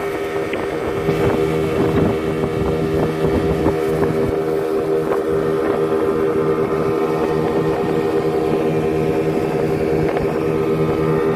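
Johnson outboard motor pushing a small fishing boat along at a steady cruising speed, running with an even, unchanging drone.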